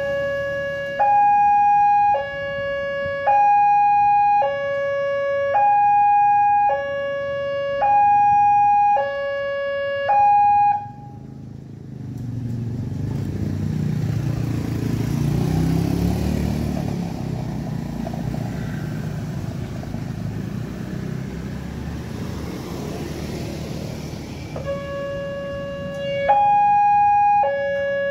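Railway level-crossing warning alarm alternating between a low and a high electronic tone, each held about a second, which stops about eleven seconds in and starts again near the end. In the gap, a low engine rumble of road traffic passing the crossing.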